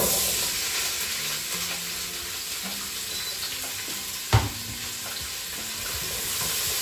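Diced peppers dropped into hot coconut oil in a Crockpot Express pot on its sear/brown setting, setting off a sudden steady sizzle that carries on as they fry. About four seconds in there is a single sharp knock, the loudest sound here.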